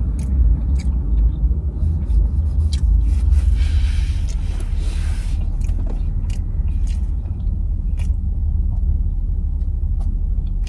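Close-miked eating: chewing and mouth clicks over a steady low rumble, with a rustle lasting a couple of seconds a few seconds in.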